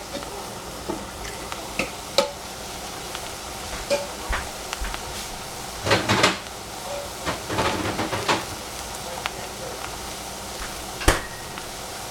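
Shredded cabbage and capsicum frying in a stainless saucepan over a gas flame: a steady sizzle with scattered sharp clicks and crackles, bunched around the middle, and one louder click near the end.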